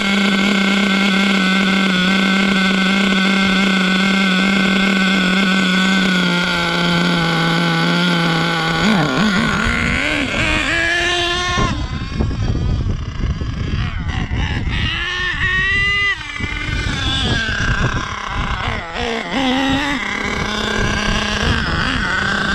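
Savage X46 nitro RC truck engine running at a steady pitch, then revved up, with its pitch rising and falling in sweeps for several seconds, before it settles back to a steady tone near the end.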